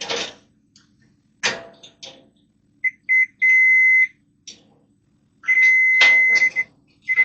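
Digital multimeter in continuity mode beeping as its probes touch the terminals: a few short beeps, then two longer held beeps about a second each, signalling a closed circuit between the points probed. A few brief clicks come between the beeps.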